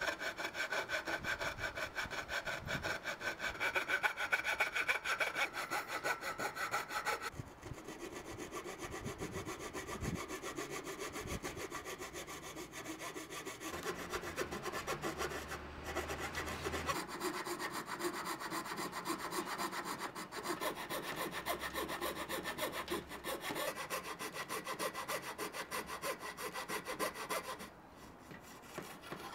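Coping saw cutting a curve through a pine board with rapid back-and-forth strokes, with a short pause near the end.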